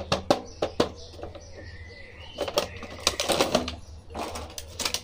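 Action figure's clear plastic blister tray and cardboard box being handled: sharp plastic clicks in the first second and again near the end, with crinkling of the plastic in between.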